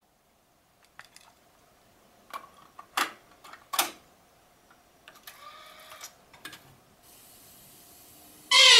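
Nakamichi CR-7A cassette deck being operated: a handful of sharp clicks from its buttons and cassette door, then a brief whir as the tape transport engages. Tape hiss follows, and music starts playing loudly near the end.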